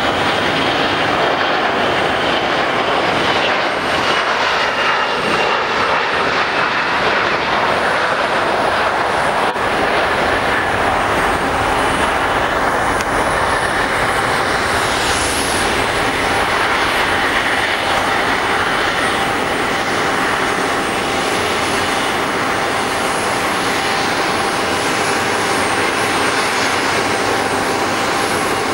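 Airbus A340-300's four CFM56 turbofan engines at take-off thrust: a steady, loud jet noise with a faint high whine, as the airliner rolls down the runway, lifts off and climbs away.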